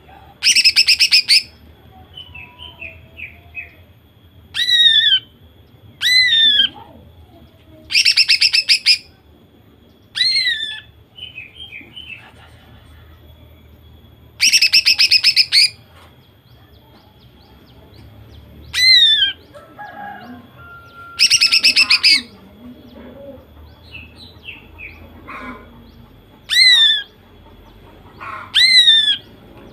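A female greater green leafbird sings loudly. She gives four rattling bursts of very rapid notes, each lasting about a second, and between them single downward-slurred whistles and softer short chirps.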